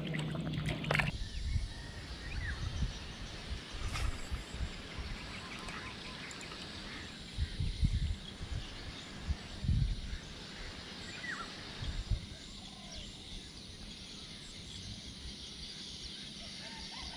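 Outdoor pond-side ambience: a steady hiss with irregular low thumps and rumbles on the microphone, and a few faint, short bird calls.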